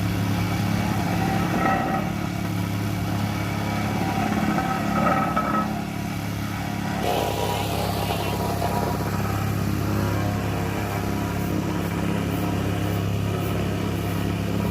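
An engine running steadily at an even speed, its pitch holding; about seven seconds in, the higher-pitched sounds over it change.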